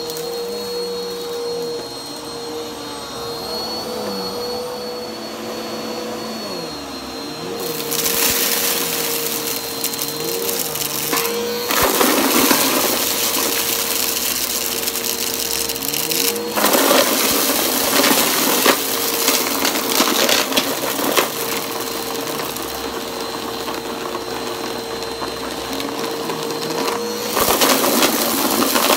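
Bissell upright vacuum cleaner with a turbo brushroll running, a steady whine from its motor, with several louder bouts of rushing noise lasting a few seconds each.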